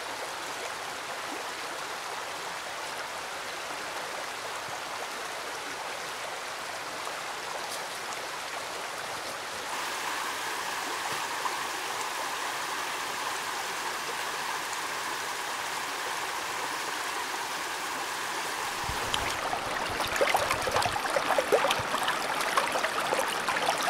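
A creek flowing in a steady rush of water, its tone shifting about ten seconds in. In the last few seconds a low rumble and scattered sharp clicks join in.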